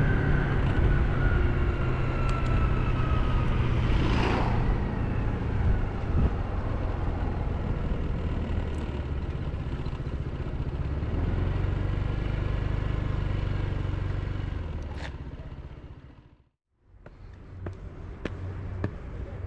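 Honda PCX scooter's single-cylinder engine running under way with a light falling whine from the drive, with a whoosh of passing traffic or wind about four seconds in. After a brief gap near the end come footsteps on stone steps.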